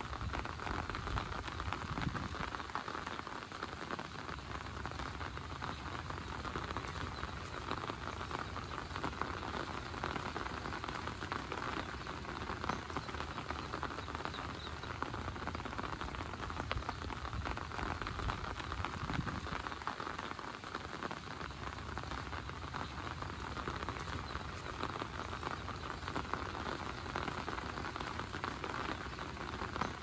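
Heavy rain falling on an open umbrella overhead: a dense, steady patter of drops drumming on the fabric.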